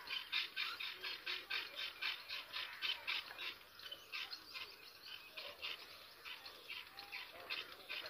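Myna nestlings giving rapid, high-pitched begging chirps, about four a second, easing off in the middle and picking up again near the end.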